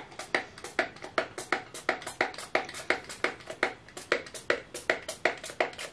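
Trigger spray bottle of rubbing alcohol being squeezed again and again in quick succession, about three spritzes a second, each a short hiss, rinsing leftover colorant out of a small cup.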